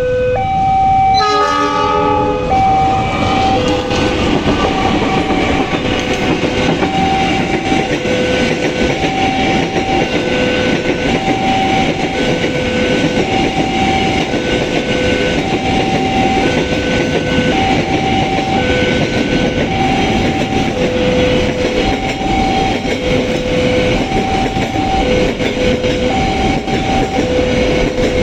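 Level crossing warning alarm repeating a steady two-tone signal. A train sounds its horn about a second in, then runs past with a continuous rumble of wheels on rail.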